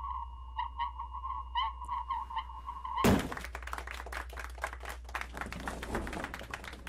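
A steady humming tone with a string of light pulses runs until about three seconds in, when a loud thump cuts it off. After that, papers are shuffled and rustled on a table.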